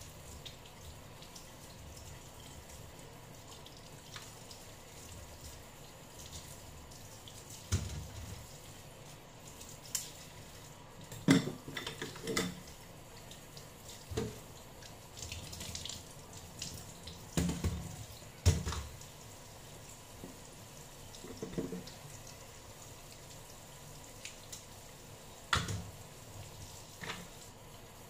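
Kitchen faucet running into a stainless steel sink while mussels are rinsed by hand, with about ten irregular sharp clacks as the mussel shells and scissors are handled.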